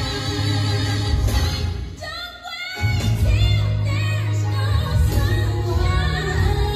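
A gospel song with singing over a heavy bass line. About two seconds in, the bass drops out briefly under a bending vocal run, then comes back in.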